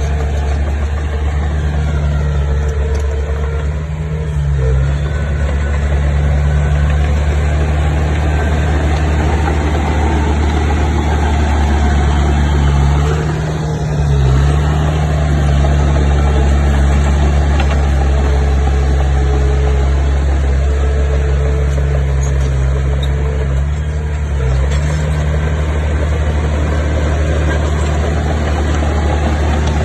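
Bulldozer's diesel engine running steadily, with brief dips in the engine note about every ten seconds.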